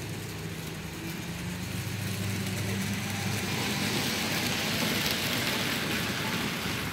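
N scale model trains running: a steady low hum with the rattle of wheels on the track, growing louder to a peak about five seconds in as the trains come close.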